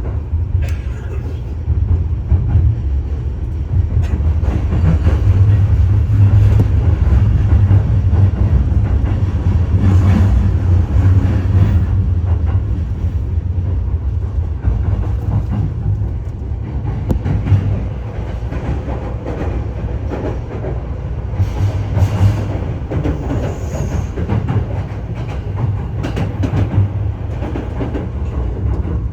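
Train running on rails: a steady low rumble with irregular wheel clicks and knocks over the track.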